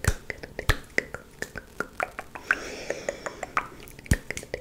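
Close-miked ASMR mouth sounds of the 'coconut rain' trigger: a quick, irregular run of wet tongue clicks and pops, several a second, with a brief breathy hiss about halfway through.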